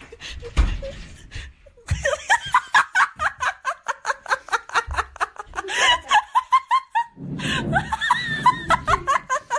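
A person laughing hard in quick, repeated high-pitched bursts, starting about two seconds in, with a low rumble under the laughter near the end.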